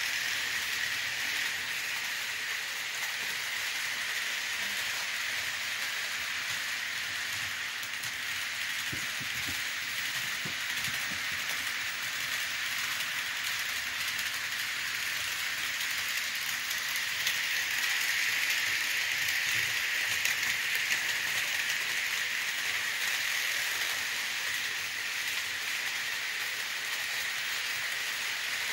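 Model train running on its track: a steady, hissing rattle of wheels and motor that swells a little about two-thirds of the way through.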